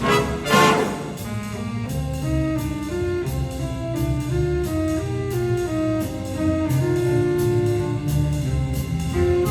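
Big band playing swing jazz: a loud full brass-section figure in the first second, then a softer passage of saxophones carrying the melody over bass and drums.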